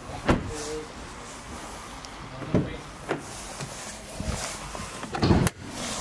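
Audi Q5 car door being opened and shut: a thud about a third of a second in, clunks about two and a half and three seconds in, and the loudest, a slam, a little after five seconds in.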